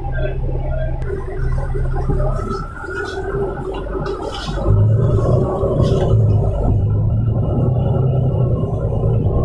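Volvo B9TL bus's six-cylinder diesel engine and drivetrain droning, heard from inside the passenger cabin as the bus drives. About halfway through, the low engine note drops slightly in pitch and gets louder, then holds steady.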